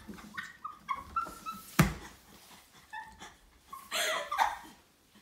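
Kitten mewing in short, high-pitched squeaks, with one sharp knock just under two seconds in.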